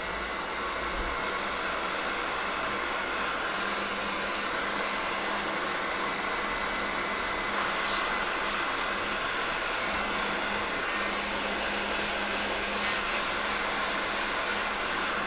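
Electric heat gun blowing steadily while shrinking heat-shrink tubing over a wiring connection.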